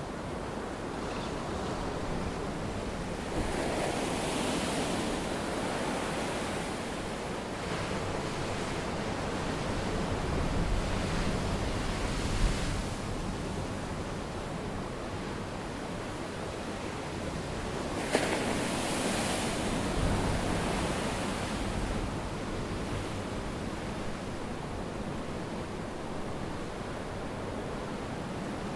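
Steady rush of sea waves and wind, swelling louder twice, with a few brief sharp cracks.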